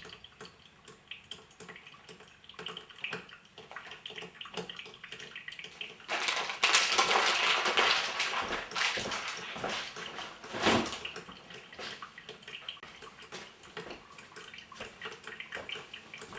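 Mr. Coffee brewer-grinder brewing: hot water sputtering and dripping through the coffee, with a louder gurgling rush about six seconds in that lasts some four seconds, and a short sharp pop just before eleven seconds.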